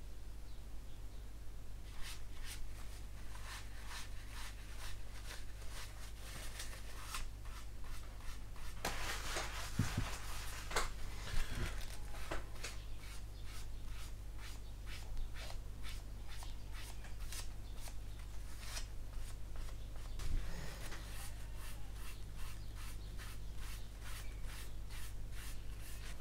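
A towel rubbed over the painted plastic surface of a scale model aircraft in short repeated strokes, about two a second, streaking weathering wash across it. A steady low hum runs underneath.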